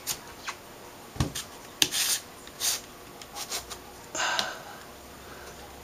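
Handling noise from an LCD panel being reassembled, its backlight assembly pressed back into the metal and plastic frame: scattered light clicks and taps, one dull knock a little over a second in, and a brief rub about four seconds in.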